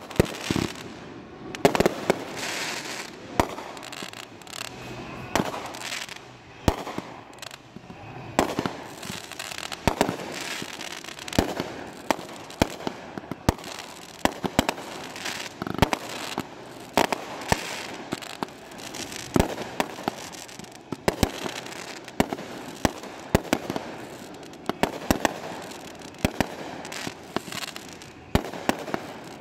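Fireworks show: a long run of sharp bangs from aerial shells bursting, with crackling between them, roughly one or two bangs a second throughout.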